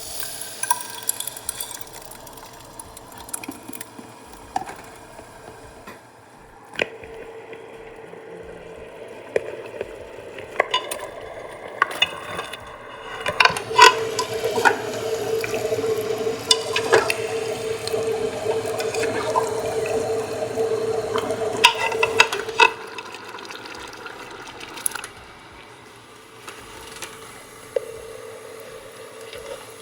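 Kitchen cooking sounds: scattered clinks and knocks of a utensil against a pot, with a louder, steady stretch of running or stirred liquid from about halfway through that stops about three quarters of the way in.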